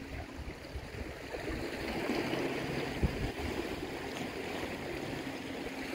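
Sea washing against the rocks, a steady rushing that swells a little after a couple of seconds, with a single sharp knock about three seconds in.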